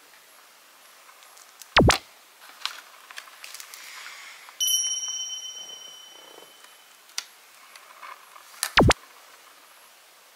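Two sharp knocks about seven seconds apart, the loudest sounds here. Between them comes a bright bell-like ding that rings out for a second or two, with a few small clicks around it.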